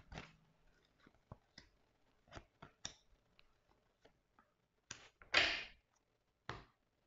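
Tarot cards being dealt onto a table: faint scattered taps and clicks as cards are handled and laid down, with a louder brief rustle a little past five seconds in.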